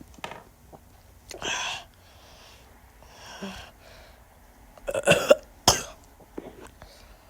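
A few short, sudden throat noises from a person, the loudest two close together about five seconds in.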